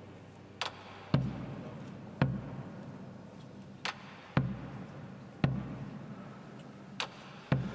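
Slow drum beat: sharp rim-like clicks alternating with deep thudding strokes, about eight strokes in a repeating group every three seconds or so, echoing in a large church.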